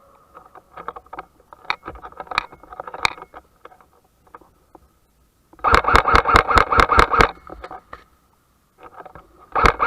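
Airsoft electric rifle firing on full auto: two rapid bursts of about eight to nine shots a second, the second starting near the end. Scattered quieter clicks and knocks come before them.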